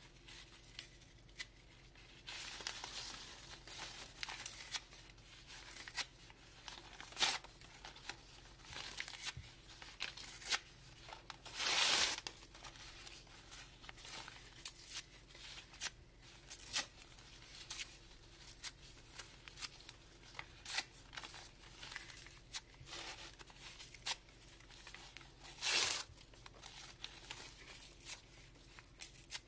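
Grey paper being torn by hand into small scraps: a steady run of short rips, with two longer, louder tears, one about twelve seconds in and another near the end. The paper is being shredded for recycling into pulp for papermaking.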